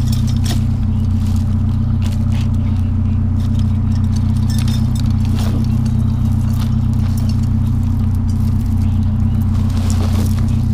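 Vehicle engine idling with a steady low hum, with light clinks and rustles from strands of lights and cords being handled.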